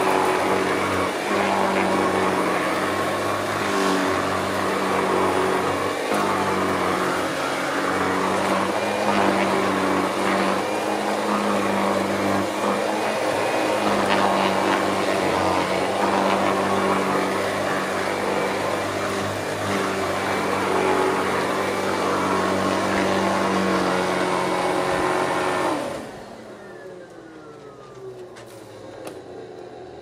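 Hoover Celebrity QS canister vacuum cleaner running steadily while vacuuming carpet. Near the end it is switched off, and the motor's whine falls in pitch as it winds down.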